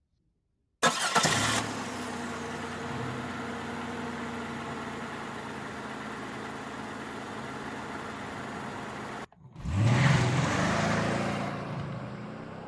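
A car engine starts abruptly about a second in and runs steadily for about eight seconds, then cuts off suddenly. A second engine sound then swells up, revving higher, and fades away near the end.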